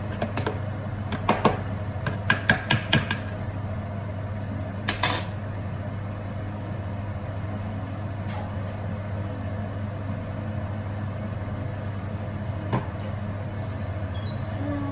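A metal utensil knocking and clinking against cookware: a quick run of sharp strikes in the first few seconds, a louder clank about five seconds in and another near the end, over a steady low hum.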